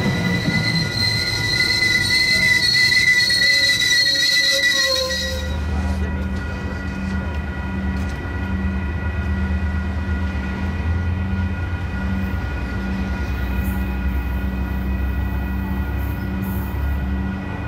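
Metrolink bilevel passenger cars rolling past with a high, wavering wheel squeal. About five seconds in, this gives way to the steady low rumble of a departing passenger train's diesel locomotive.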